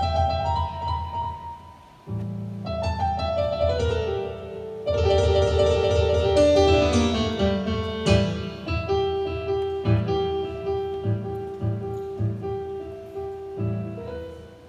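Piano sound played on a stage keyboard: low bass notes held under descending runs and chords, with one higher note held steadily through the second half.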